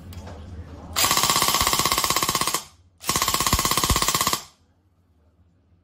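Airsoft rifle fitted with its original muzzle firing two rapid full-auto bursts, each about one and a half seconds long with a short gap between them, the shots coming evenly and quickly and stopping sharply.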